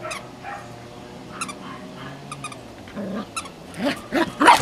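Cocker spaniel puppies barking in play while they wrestle. A few short calls come early, and louder ones come near the end.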